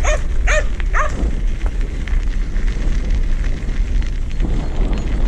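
A border collie gives three quick barks in the first second. Under them runs the steady crunching rumble of bicycle tyres rolling on a gravel path, with wind buffeting the microphone.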